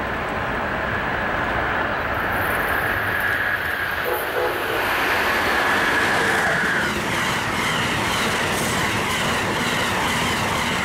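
Amtrak passenger train hauled by a Siemens ACS-64 electric locomotive passing at speed. The rush of wheels on rail builds to its loudest about halfway through, then carries on as the stainless-steel coaches clatter by.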